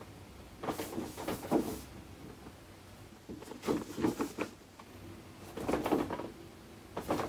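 Cardboard toy box being handled and turned over in the hands: several short bouts of scuffing and bumping a second or two apart.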